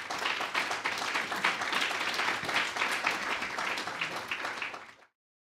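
Audience applauding, a dense run of hand claps that cuts off suddenly near the end.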